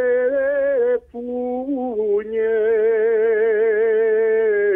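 A man singing a Maramureș folk song solo, with no accompaniment, holding long notes with a slow waver. He breaks off briefly for a breath about a second in, then holds one long note.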